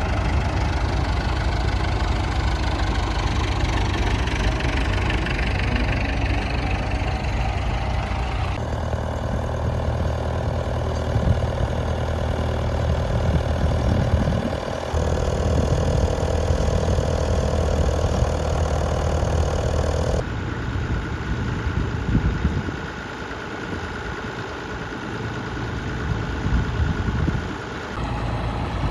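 Tractor engines running steadily, the sound changing abruptly several times as one engine gives way to another.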